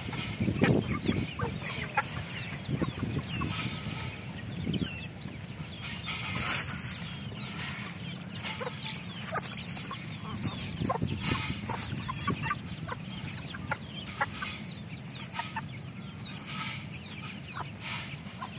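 A flock of Indonesian village chickens (ayam kampung), hens, a rooster and chicks, clucking and calling while they feed, with many short clicks of beaks pecking at a wooden feed trough.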